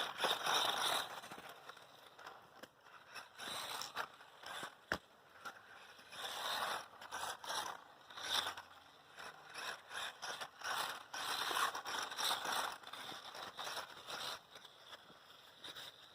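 Small electric 1/18-scale RC truck (Losi Mini-T 2.0) driven in short throttle bursts over dirt. The motor and gears whir in irregular surges, with the knobby tires scrabbling and scraping, and a few sharp clicks.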